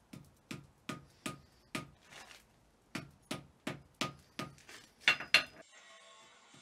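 Light hand-hammer blows on a red-hot iron bloom on a steel anvil, about two or three a second with a short pause midway; the last two blows are the loudest. Gentle blows meant to consolidate the crumbly iron-and-slag bloom without breaking it apart. Background music comes in near the end.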